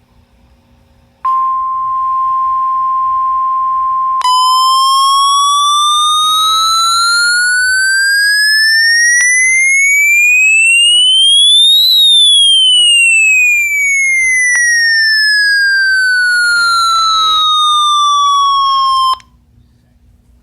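Electronic emergency alert tone: a steady, high single tone for about three seconds, then one long siren-like glide rising in pitch for about eight seconds and falling back over about seven, stopping abruptly.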